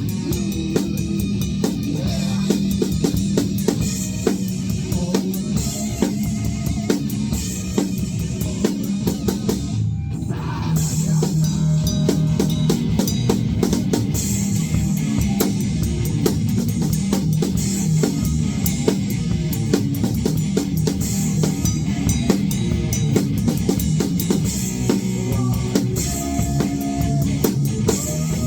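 A band playing music led by a drum kit, with bass drum and snare hits and guitar over a heavy low end. There is a brief break about ten seconds in.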